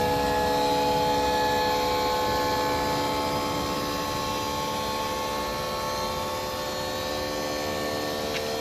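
Tata Daewoo truck engine running with a steady whine made of several tones, drifting slightly lower in pitch. It is the noise the owner suspects comes from a failing fan clutch.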